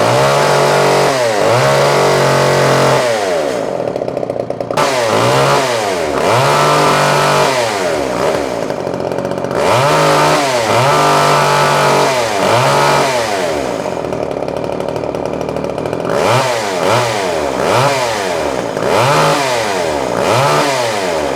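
Poulan Micro XXV Deluxe two-stroke chainsaw running and being revved over and over, each throttle blip rising in pitch and falling back, with short spells at idle in between. The saw has just been brought back to life after about ten years in storage, with new fuel lines and filters.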